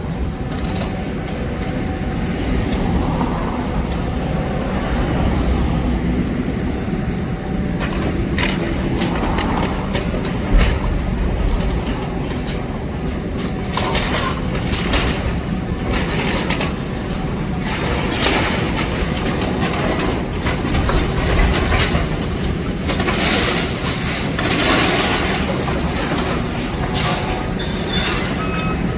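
Demolition excavator working rubble: its diesel engine runs steadily under repeated bursts of clanking and crashing as debris is handled, with gusts of wind on the microphone.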